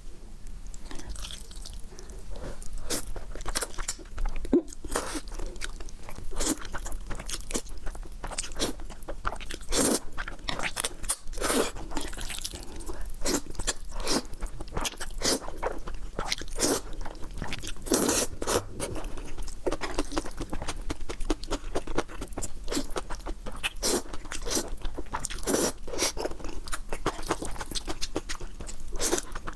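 Close-miked mouth sounds of a person eating black bean sauce noodles: wet slurps and chewing with many small irregular clicks and smacks.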